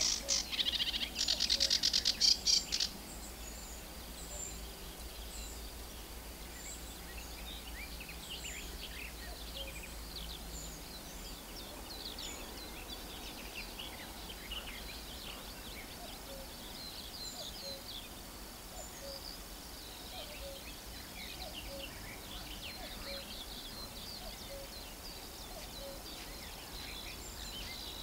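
Warbler song in a reed bed: a close bird gives a loud, harsh, rapid chattering song that stops about three seconds in. Many fainter chirps and trills from songbirds further off follow over a steady low background rumble.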